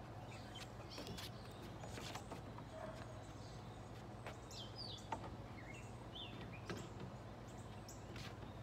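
Quiet backyard ambience: birds chirping now and then over a low steady hum, with a few light knocks, the sharpest about five seconds in.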